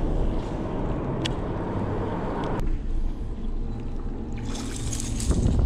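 Wind rumbling on the microphone and lake water lapping at the boat, with a short splashy hiss about five seconds in.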